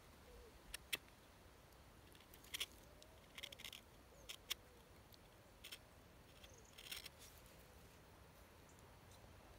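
Small carving knife taking short slicing cuts from a piece of wood, an irregular series of crisp little snicks, the sharpest about a second in and again at about two and a half seconds.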